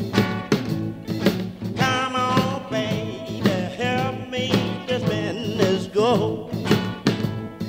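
Background music: a song with a steady beat, and a wavering lead melody in the middle.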